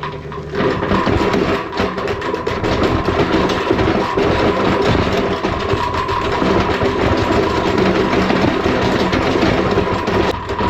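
A heavy vehicle engine running steadily.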